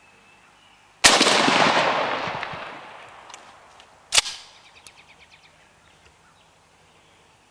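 Turkey shotgun firing: a blast about a second in that trails off in a long rumbling echo over about two seconds, then a second, sharper bang about three seconds later with a shorter tail.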